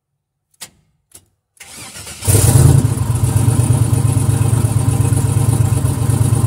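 Two clicks, then the twin-turbocharged engine of a 1986 Buick Regal cranks briefly on the starter and catches a little over two seconds in, settling into a steady idle at about 1,000 rpm.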